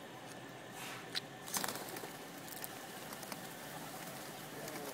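Flock of pigeons taking off, wings flapping, with the loudest rush of wingbeats about a second and a half in.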